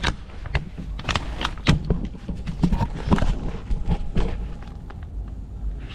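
Irregular knocks and thuds of a heavy bag being handled and set down, mixed with footsteps.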